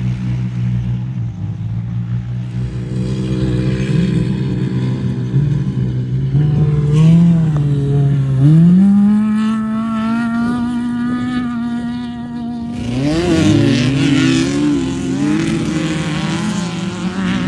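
Off-road race vehicle engine running, its pitch climbing about eight seconds in as it accelerates and then held high. About thirteen seconds in, a louder, rougher rush of noise with wavering engine pitch comes in.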